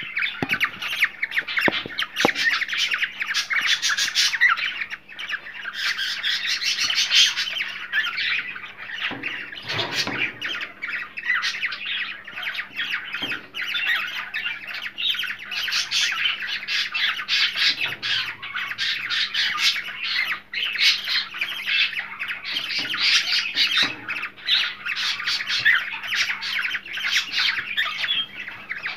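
Several cockatiels chattering and squawking without a break, a dense run of short overlapping calls and whistles.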